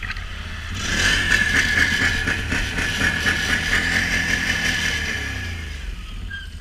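Can-Am Renegade XMR 1000's V-twin engine revving up about a second in, held under throttle, then easing off near the end, with a steady hiss over it.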